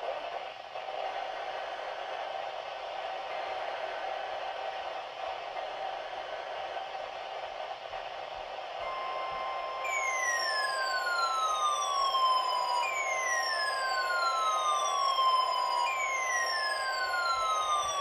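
Weather alert radio sounding an Emergency Alert System warning. A steady hiss runs for about nine seconds, then a steady alert tone comes on, and from about ten seconds in a falling, siren-like sweep repeats about every three seconds over it.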